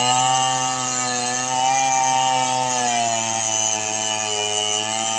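Stihl chainsaw engine running at a steady speed, its pitch wavering slightly.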